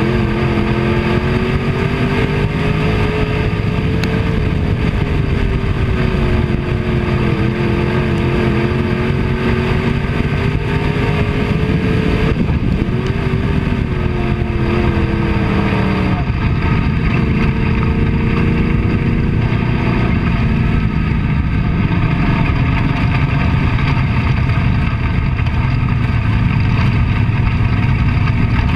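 Dirt-track race car's engine heard from inside the cockpit at speed, its pitch rising and falling through the laps. About sixteen seconds in the engine note falls sharply and runs lower, becoming a rougher rumble in the last several seconds.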